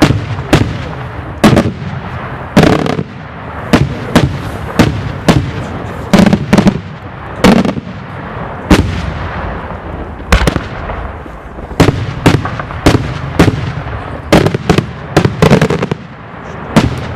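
Daylight fireworks show: a dense, irregular barrage of loud aerial shell bursts and bangs, several a second, with echoing rumble between them.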